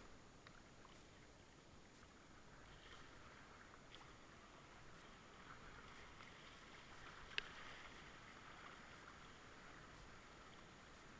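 Faint rush of river water as a kayak is paddled through a small rapid, swelling in the middle, with a few light clicks and one sharper knock about seven seconds in.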